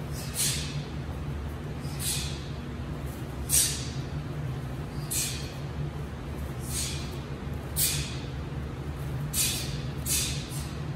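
Martial artists performing a taekwondo form at full speed: a sharp, short swish with each punch and block, about one every second or so, over a steady low hum.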